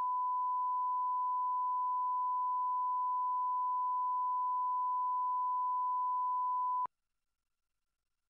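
Steady 1 kHz line-up test tone of a colour-bar video leader, cutting off suddenly about seven seconds in.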